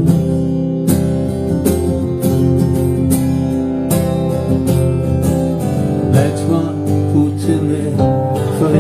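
Acoustic guitar strumming chords in a live song's instrumental passage, a stroke roughly every three-quarters of a second over ringing chords.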